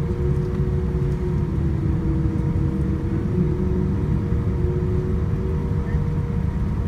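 Cabin noise of a Boeing 787-9 taxiing: a steady low rumble with a constant hum from its GE GEnx-1B engines and cabin air, heard from a window seat.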